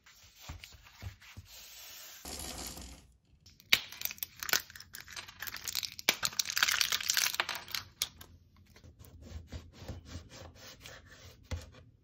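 Tablets pressed out of a blister pack, the foil crackling and tearing, loudest around the middle. Earlier there is shorter rustling, and later a run of light clicks.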